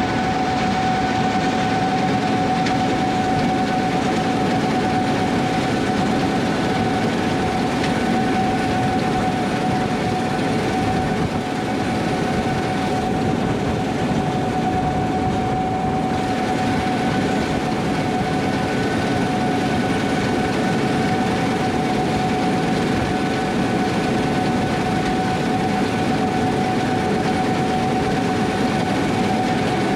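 Combine harvester running steadily at work, a constant high whine riding over the drone of the engine and machinery.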